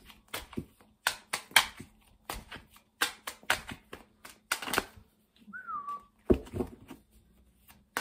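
A deck of Teal Swan Frequency Tarot cards being shuffled hand over hand: irregular soft slaps and clicks of the cards, with short pauses. About five and a half seconds in comes a brief falling whistle-like tone.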